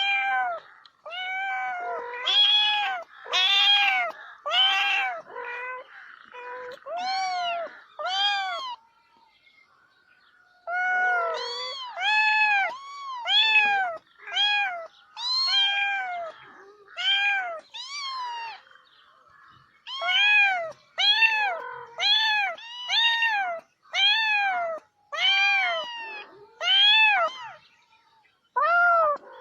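A cat meowing over and over, about one meow a second, each meow rising then falling in pitch. The meows come in three runs with short pauses between them.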